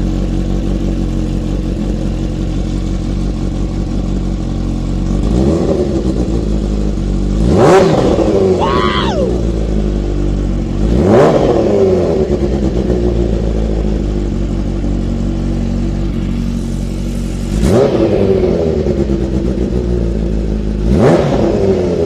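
Kawasaki Ninja H2's supercharged 998 cc inline-four idling through a handmade titanium exhaust and blipped by hand about five times. Each rev climbs quickly and drops straight back to a steady idle.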